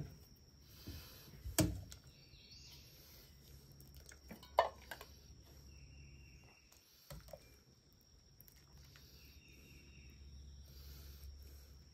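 Metal ladle clinking against a stainless steel pot and bowl while soup is ladled out: a few sharp knocks with short ringing, the loudest about a second and a half in and again near the middle.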